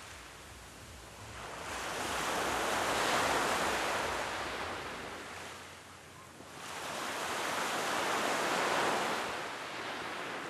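Sea waves washing in, the surf swelling and falling away twice, about five seconds apart.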